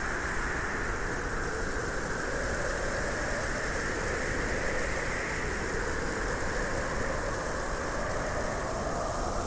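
A small motor running steadily, an even mechanical whirr with no change in speed.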